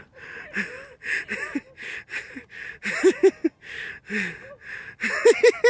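A person panting in quick breathy huffs, with short bursts of laughter in threes about three seconds in and again near the end.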